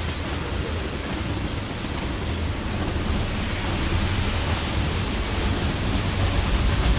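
A train of railroad tank cars rolling past close by: a steady rush and rumble of steel wheels on the rails. A deeper rumble builds near the end.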